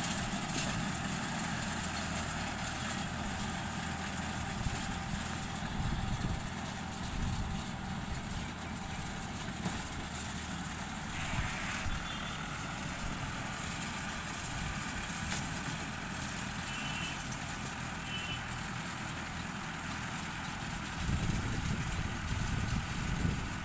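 Tractor engine running steadily while driving a round straw baler, a continuous low drone with machinery noise over it. It grows a little louder near the end.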